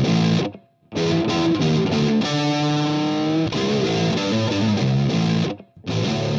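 Intro music led by guitar. It cuts out briefly twice, about half a second in and again near the end.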